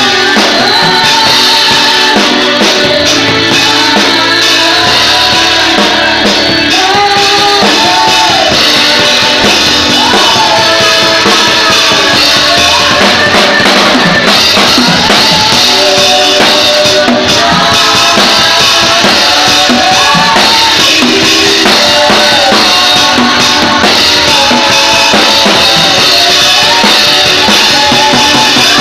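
Loud live gospel praise music: a woman singing a melody into a microphone over electronic keyboard and a drum kit with bass drum and snare.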